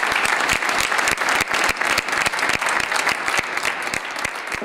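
Audience applauding: dense, steady clapping from a seated crowd that gradually thins and softens near the end.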